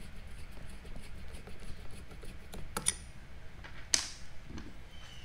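A 2.5 mm hex driver turning the small mounting screws of a scope-wheel pointer: light ticking and scraping of metal on metal, with a couple of sharper clicks near three seconds in and the loudest click about four seconds in.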